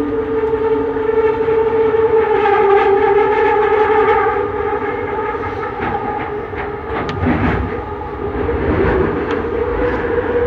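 Bombardier Innovia Metro 300 train running, heard from inside the car: the steady whine of its linear induction motors, shifting slightly in pitch. A few sharp knocks come in the second half, the kind of knocking from the third rail that the rider noted on this ride.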